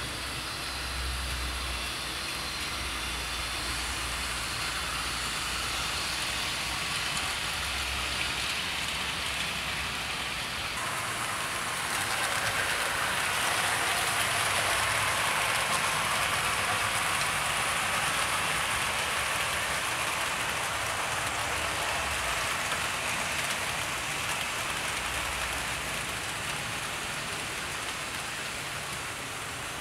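OO gauge model trains running on the layout, with a ViTrains Class 37 model diesel passing close: a steady rolling hiss of wheels on track with a faint motor hum underneath. The hiss grows louder about a third of the way in and eases off towards the end.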